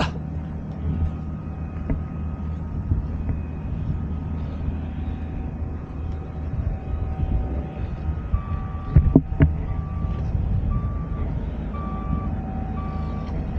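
A vehicle engine running steadily, with a couple of sharp knocks about nine seconds in. From about eight seconds in, an electronic reversing alarm beeps a little under twice a second.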